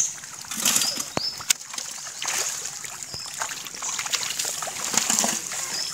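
Splashing and squelching in shallow pond mud and water as carp flop about and are handled, with a few sharp knocks, the loudest about a second and a half in.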